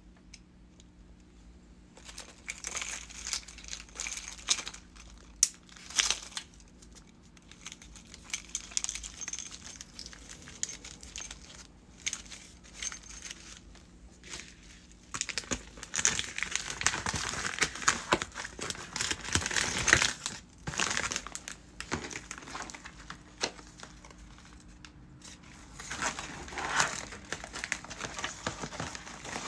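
Hands packing an order, with plastic packaging and a metallic bubble mailer crinkling and rustling in irregular bursts mixed with small clicks from the keychain's hardware. The crinkling is thickest from about halfway through.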